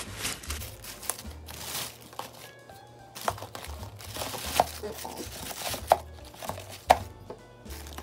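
Thin plastic bag rustling and crinkling as plastic food containers and a drink can are packed into it, with a few sharp knocks of hard plastic and metal against each other.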